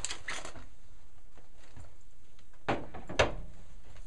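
Handling noise as a Ruger 10/22 Takedown rifle is twisted apart into its barrel and stock halves. There is a brief rustle near the start, then two sharp knocks about half a second apart near the end, the second louder.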